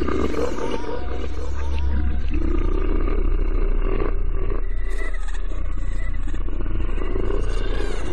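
Dark horror-style soundtrack: a deep steady drone under a rough, shifting mid-range layer, swelling a little a few seconds in.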